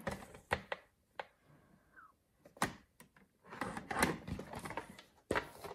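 Stampin' Up paper trimmer scoring cardstock: several sharp plastic clicks and knocks as the card and the trimmer's scoring carriage are handled, and about three and a half seconds in a scraping stroke as the scoring blade is run along the rail.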